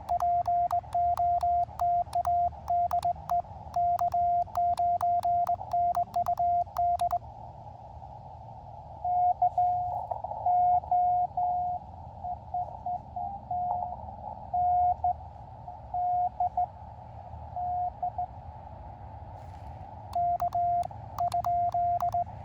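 Morse code from an Elecraft KX2 transceiver: the operator's own sidetone is keyed in short and long tones with a sharp click on each element, sent on paddles worked as a cootie (sideswiper) key. After about seven seconds the sending stops and the radio's narrow-filtered band hiss comes up with a weaker station's Morse reply in it. The loud keyed sidetone resumes near the end.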